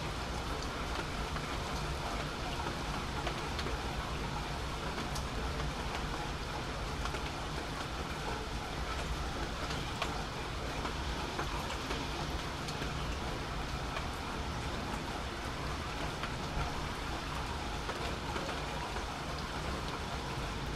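Steady rain falling in a thunderstorm: an even hiss with a low rumble underneath and a few sharp drop ticks close by.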